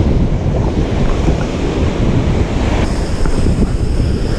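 Ocean surf washing in and foaming around the feet, with heavy wind buffeting the microphone. The hiss of the water gets brighter about three seconds in.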